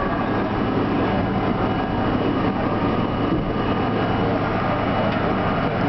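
R32 subway car running slowly through a tunnel station as it pulls in to stop: a steady rumble of steel wheels on rail with a steady low motor hum.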